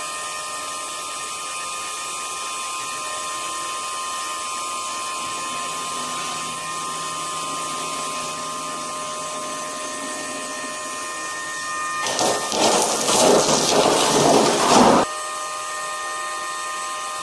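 Workshop power tool running with a steady whining hum and several held tones, then about three seconds of loud, harsh cutting or grinding noise that stops abruptly.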